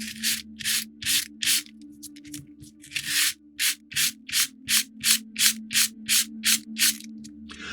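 Light hand sanding of a small wooden bulkhead piece from a model ship kit: sandpaper rubbed back and forth in even strokes, a little under three a second, briefly irregular about two seconds in, then quickening slightly. The sanding just takes the rough feel off the wood.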